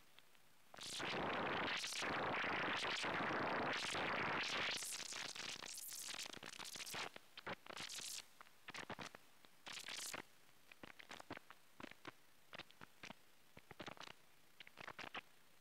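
Handling noise on a phone's microphone: a loud rustle lasting about four seconds, then scattered clicks and brief scrapes.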